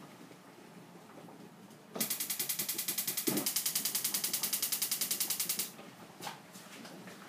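Gas stove burner's electric igniter clicking in a fast, even run, about ten clicks a second, for nearly four seconds while the knob is held at the ignite position.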